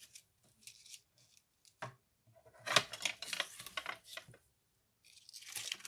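Paper and card stock being handled on a cutting mat: rustling and light taps as pieces are picked up and laid down, with a sharp tap just before two seconds in and the loudest stretch of rustling about three seconds in.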